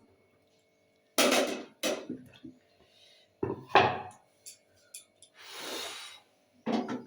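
Kitchen things being handled and set down: a series of separate wooden and crockery knocks and clatters, with a brief rustle about five and a half seconds in.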